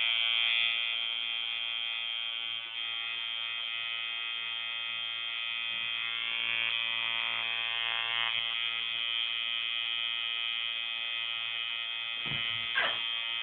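Tattoo machine switched on and buzzing steadily at an even pitch as the needle works into the skin.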